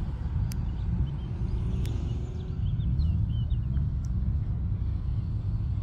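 Steady low rumble with a car engine faintly heard in the distance, its pitch gliding briefly about two seconds in. Two sharp clicks come early, and a few high chirps come in the middle.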